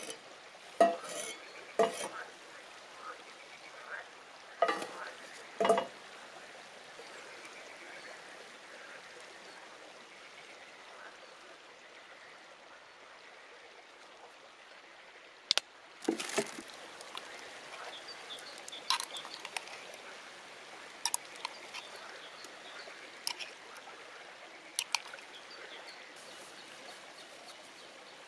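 Camp cooking: sharp knocks and scrapes of a cleaver and wooden spatula against a cast-iron skillet and salad bowl, then sauce shaken and poured from a bottle over the salad with scattered clicks. A steady hiss sits underneath throughout.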